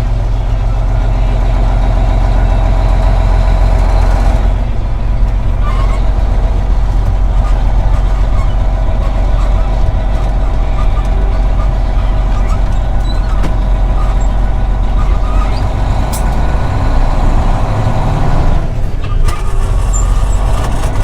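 Truck engine running steadily under way, heard from inside the cab. The engine note changes about four seconds in and again near the end.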